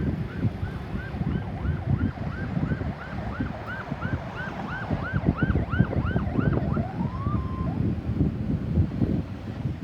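Ambulance siren on a fast yelp, about three to four rising-and-falling sweeps a second, getting louder as it comes closer. Near the end it gives one rising tone, holds it briefly, and cuts off. Traffic rumble and wind on the microphone run underneath.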